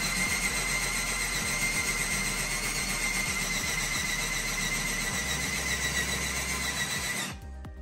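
Electric drill running steadily with a high whine as the bit cuts new holes in a steel seat bracket. It stops abruptly near the end.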